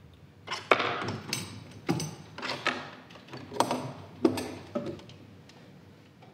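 A series of about seven knocks and clatters of hard objects being handled at the chamber table, close to the desk microphones, with a short ring after each; the room goes back to quiet room tone near the end.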